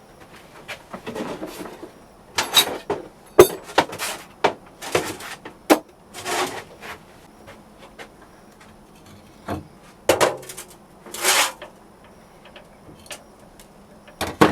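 Hard objects being handled and knocked about: a string of irregular knocks, clicks and short scrapes, the loudest a sharp knock about three and a half seconds in, with a quieter stretch in the middle.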